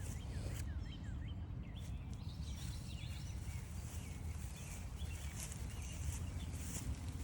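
Several songbirds chirping and singing in quick short notes, over footsteps crunching on a trail about one step every 0.7 s, with a steady low rumble beneath.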